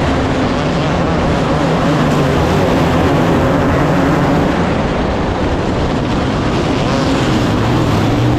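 Loud engine running steadily, its pitch wavering slightly.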